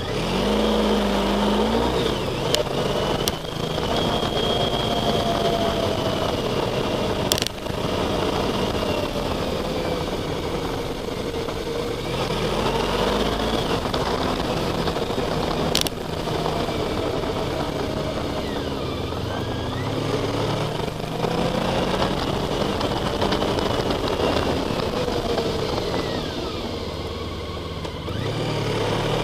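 Honda ST1300 Pan-European's V4 engine running on the move, its pitch rising and falling with the throttle, over a steady rush of wind and road noise. A few sharp clicks are heard, one near the start and others about 7 and 16 seconds in.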